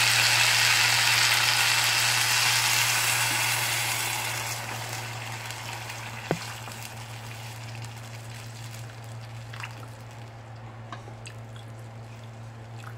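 Water poured from a plastic pitcher into a hot pot of sautéed rice and chicken: a loud sizzle that dies away over the first several seconds as the pot fills, leaving a quieter pouring trickle. A single knock about six seconds in.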